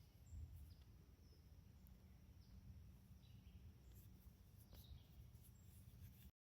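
Near silence: faint outdoor ambience with a steady high insect trill and a few faint short chirps over a low rumble.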